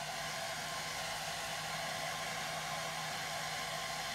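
Handheld hairdryer running steadily, a constant rush of air with a steady hum, held close to the skin to dry a freshly sculpted silicone gel (SculptGel) scar.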